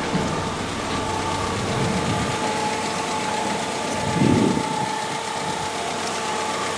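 2007 Ford Focus SE's 2.0-litre Zetec four-cylinder engine idling steadily, with a brief voice-like sound about four seconds in.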